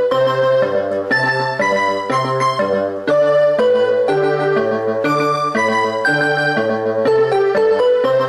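Instrumental music with a keyboard sound: a melody over a bass that steps back and forth about twice a second.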